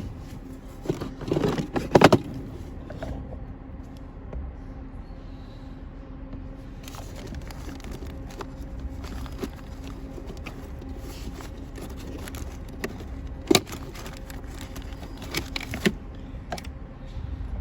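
Hand-tool work on a car's blower motor housing: scattered clicks, knocks and rattles of tools, screws and plastic trim, a short clatter about a second in and sharp knocks near the end, over a steady low hum.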